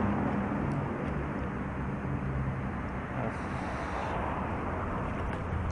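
Steady rushing road noise of riding a bicycle along a city street with car traffic, with a low vehicle engine hum in the first couple of seconds that fades away.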